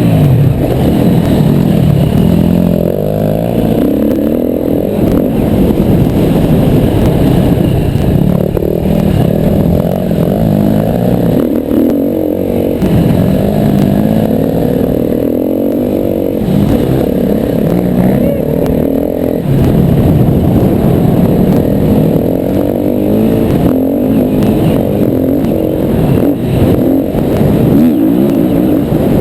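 Yamaha WR250R's single-cylinder four-stroke engine revving up and down under changing throttle while it is ridden off-road, its pitch rising and falling every few seconds.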